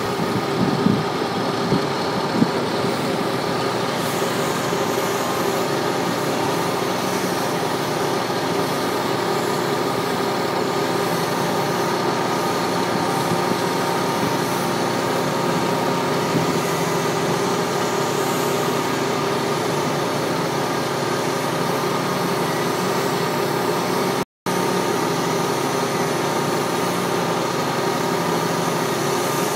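Chainsaw engine running steadily as it cuts into a tree trunk to fell it, the sound holding at one even pitch and level throughout. The sound cuts out for an instant once, near the end.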